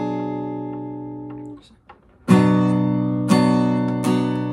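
Acoustic guitar chord ringing and fading from a strum, stopped short about a second and a half in. After a brief pause the chord is strummed three more times, about a second apart.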